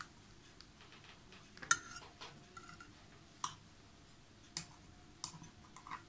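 A knife and serving utensil clicking and tapping against a glass baking dish as a cake is cut and served: about five scattered sharp taps, the loudest about two seconds in.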